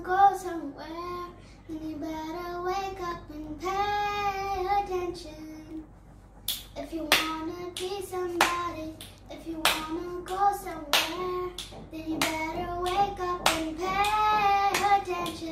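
A young girl singing a song. About halfway through she starts clapping in time, about two sharp claps a second under her voice.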